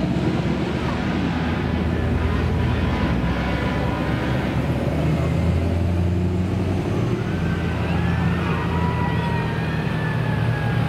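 A line of cars and pickup trucks driving slowly past, their engines a steady low rumble. A faint siren wails up and down in the background in the second half.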